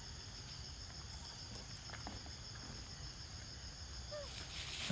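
Steady high-pitched insect drone in forest undergrowth, with a few faint clicks and a short falling squeak about four seconds in, and a rustle rising near the end.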